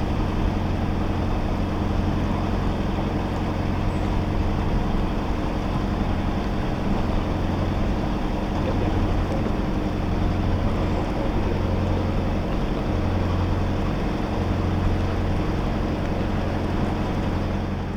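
Narrowboat engine running steadily while the boat is under way: an even, low drone.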